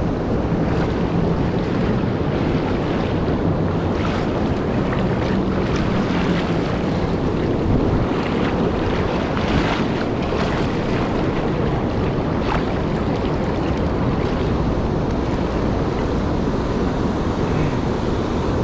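Steady rush of fast, turbulent river water below a low dam, with wind buffeting the microphone.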